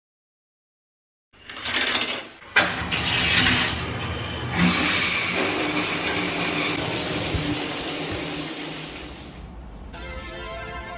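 A loud rushing noise with a few sudden swells sets in just over a second in and fades out about nine seconds in. Keyboard-led background music begins near the end.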